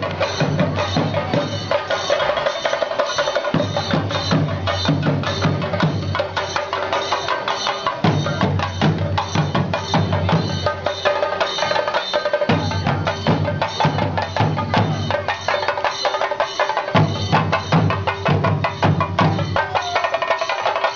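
Percussion music: rapid, dense drumming with wood-block-like strokes, and a deeper drum part that drops out and comes back every few seconds.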